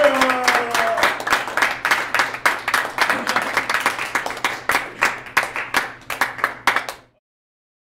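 Audience clapping and applauding after a performance, a dense, irregular patter of hand claps that cuts off suddenly about seven seconds in.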